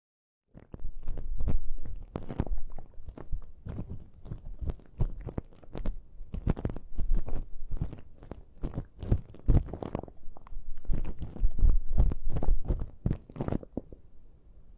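Tweezers scraping, crackling and tapping right at the ear in a close-up ASMR earwax removal, as wax softened with ear drops is pulled out. The crackles come thick and uneven, starting about half a second in and stopping just before the end.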